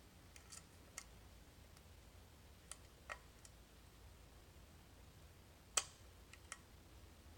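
Faint, scattered metallic clicks of a lock pick and tension wrench working inside a lock's keyway, about eight in all at uneven intervals, the loudest almost six seconds in.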